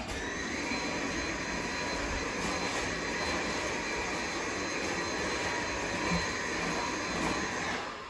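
Vacuum cleaner running steadily with a high whine over its rushing noise, switched off near the end so its motor starts to wind down.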